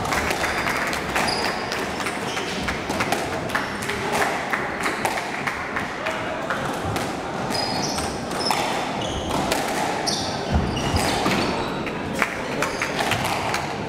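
Squash court sounds: frequent sharp knocks of squash balls against walls and floor and short squeaks of shoes on the wooden floor, with indistinct voices in the background.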